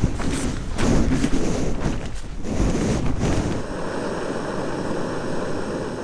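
Strong wind gusting and rushing, buffeting the microphone in irregular blasts. About three and a half seconds in the sound changes abruptly to a steadier, even rush of wind.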